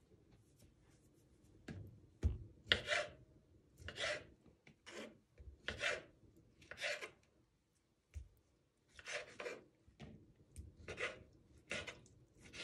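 Kitchen knife slicing through artichoke hearts on a bamboo cutting board: about a dozen separate cutting strokes, roughly one a second, with a knock of the knife on the board about two seconds in.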